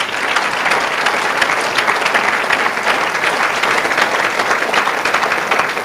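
A large congregation applauding, dense and steady.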